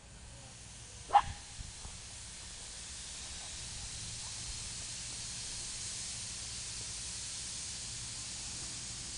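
Flagg Coal 75 steam locomotive venting steam, a steady hiss that grows louder over the first few seconds and then holds. A single short, sharp, loud sound about a second in.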